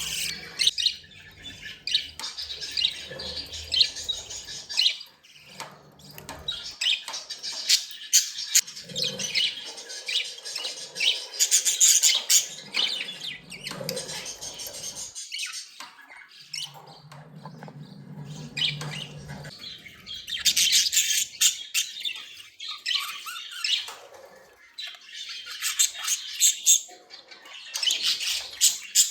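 Budgerigars chirping continuously in quick, high notes, with louder bursts of fast chirping about twelve seconds in, around twenty seconds in, and near the end.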